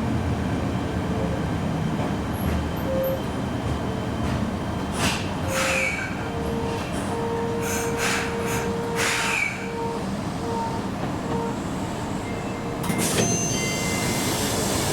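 Fukuoka City Subway 1000N-series train running, with a continuous rumble. A faint motor whine comes and goes in the middle, and near the end a hiss with thin high squealing tones sets in.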